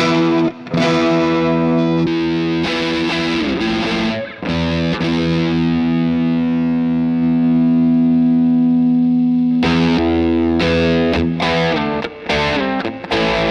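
Electric guitar with a distorted tone, played through a DemonFx CK Compressor pedal and a Nux Amp Academy preamp. A few strummed chords, then one chord held and ringing out for about five seconds, then short choppy chords near the end.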